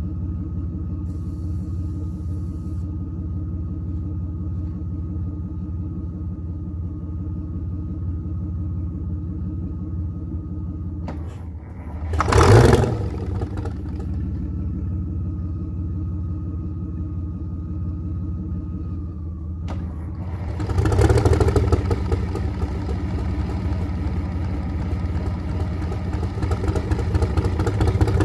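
Detroit Diesel 6-71 two-stroke inline-six diesel running steadily while warming up after a cold start. About 12 seconds in there is a short, loud rev, and from about two-thirds of the way through it runs faster and louder.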